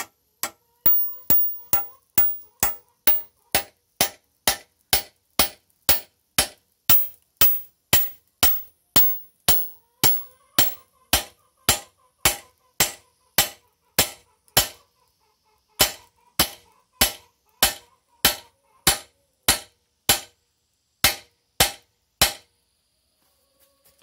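Hammer blows on the steel linkage of a backhoe arm, a steady run of about two strikes a second, each blow ringing. The blows pause briefly about fifteen seconds in and stop a couple of seconds before the end.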